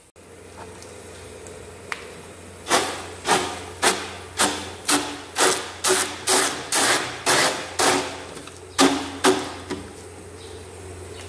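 A soft ball of dioul (brick pastry) dough dabbed again and again onto a copper pastry plate to lay down a thin sheet. It makes a run of sharp slapping taps, about two a second for some seven seconds, starting a few seconds in.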